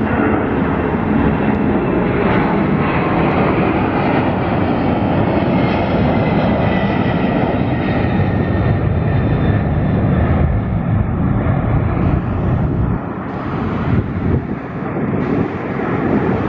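Boeing 767-300 twin-jet climbing out after takeoff, its engines giving a loud, steady rumble with a faint whine on top. The deep part of the rumble drops away about thirteen seconds in as the jet pulls farther off.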